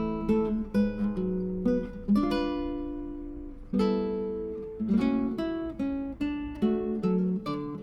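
Background music: acoustic guitar picking chords and short melodic runs, notes ringing and fading.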